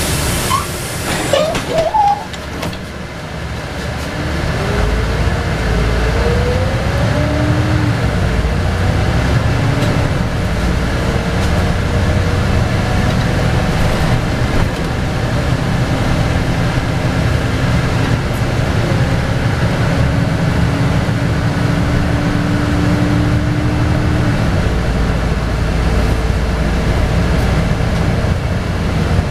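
Cabin sound of a LiAZ 5292.22 city bus pulling away from a stop: a short hiss at the very start, then the drivetrain running with a whine that rises in pitch as the bus gathers speed, settling into a steady drone.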